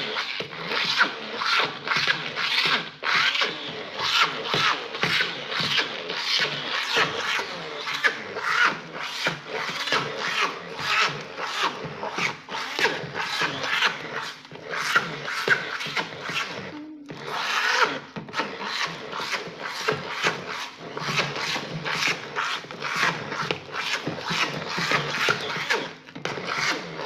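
Stick blender pushed up and down through a thick bread mash in a bowl, its blade head scraping against the bowl in rhythmic strokes, about two or three a second.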